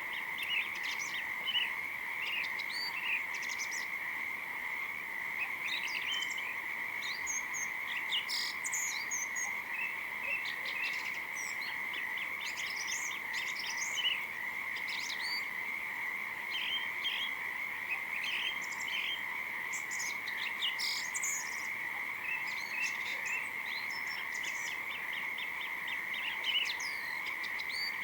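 A steady, unbroken chorus of calling frogs, with many short bird chirps scattered over it.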